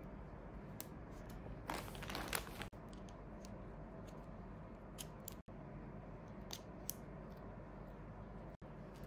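Faint handling sounds of a smartwatch and its bands being swapped: a rustle lasting about a second near the start, then scattered light clicks and taps as a metal chain-style strap is fitted.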